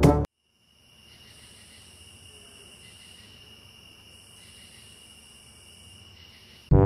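Insects chirring at night: a steady, faint, high-pitched trill that swells and eases a little. Brass band music cuts off just after the start and comes back in near the end.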